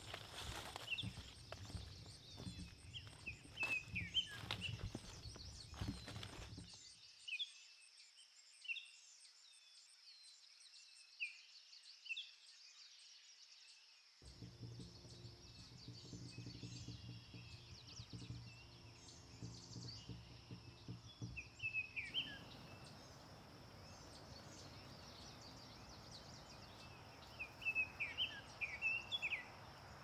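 Forest ambience: small birds chirping in short high calls, with footsteps rustling through undergrowth for the first several seconds. Around the middle a low steady hum comes in for several seconds, and a cluster of chirps comes near the end.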